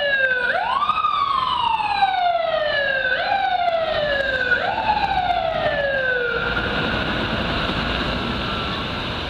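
Fire engine siren wailing in repeated cycles, each a quick rise in pitch and a long slow fall. It winds down and stops about six seconds in, leaving the hum of city traffic.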